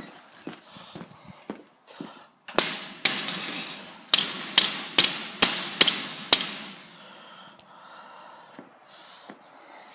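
A cracked ceramic bowl being smashed into pieces: about eight sharp cracking strikes in quick succession, each with a short clattering tail, with lighter clinks of shards before and after.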